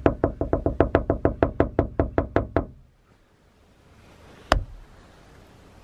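A rapid run of about twenty hollow knocks on a hard surface, roughly seven a second and slowing slightly, lasting nearly three seconds. About four and a half seconds in comes one more sharp knock.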